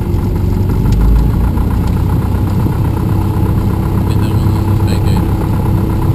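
Cessna 172M's four-cylinder Lycoming engine and propeller running steadily at low taxi power, heard from inside the cockpit.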